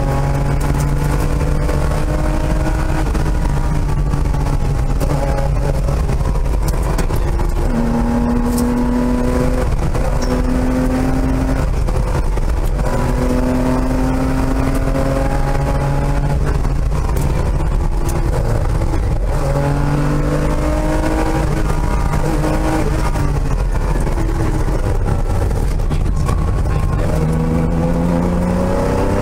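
Porsche 911 RS flat-six engine at racing speed, heard from inside the cabin. It revs up hard again and again, with the pitch falling back at each gear change or lift every few seconds.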